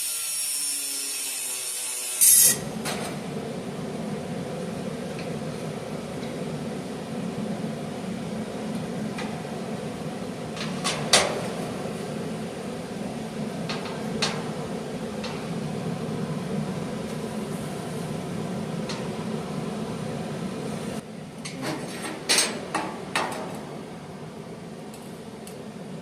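Metal parts and tools being handled during fabrication: a few sharp knocks and clanks over a steady hum, with a cluster of knocks near the end.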